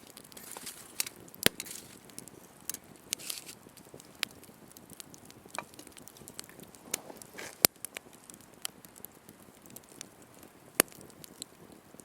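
Wood campfire crackling, with irregular sharp pops; the loudest come about a second and a half in, near the middle and near the end.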